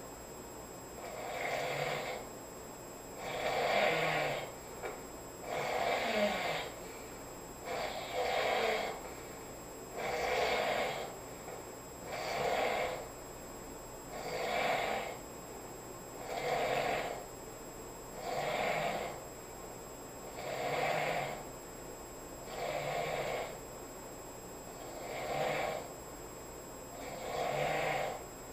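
A sleeping person snoring in a steady rhythm, one snore about every two seconds.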